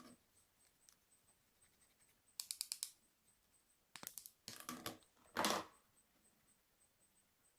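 Slime being handled: a quick run of crackly little pops, then a few short squelches, the loudest one a little past the middle.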